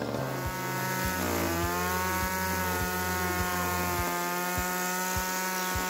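Small top-handle chainsaw running and cutting into the top of a wooden post to notch a right angle. Its pitch rises about a second and a half in as it bites into the wood, then holds steady.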